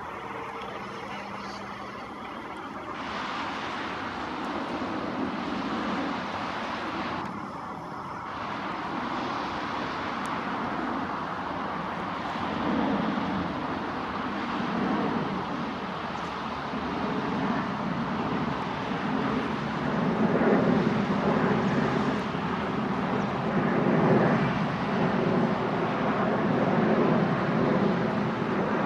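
Jet airliner landing: a continuous rushing engine and air noise that grows steadily louder, its deeper rumbling part swelling from about halfway through.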